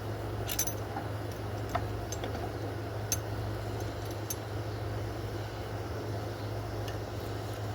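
A handful of light metallic clicks and clinks from small parts and tools being handled while fitting a charging coil with its bolts, over a steady low hum.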